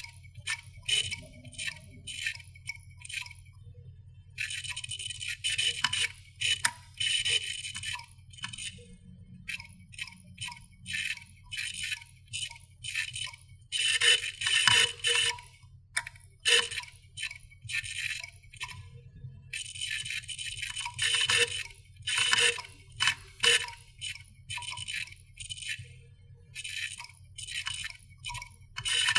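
Failing computer hard disk drive: the read/write head clicks and rattles in irregular bursts lasting a second to several seconds, over the steady low hum of the spinning platters. The sound of an end-of-life drive crashing.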